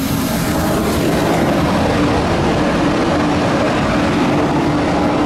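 Steady airport-apron machinery noise: a loud, even rush with a steady low hum, typical of aircraft and ground equipment running at the stand, starting abruptly.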